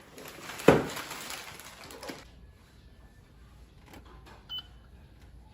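Rustling and handling of gift packaging, with one sharp knock about a second in, then a few faint clicks.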